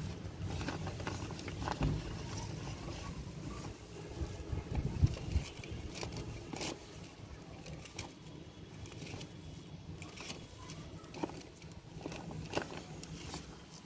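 Spinach being picked by hand from a grow bag: leaves rustling, with scattered sharp clicks and snaps as the stems are handled, the loudest about five seconds in, over a low rumble.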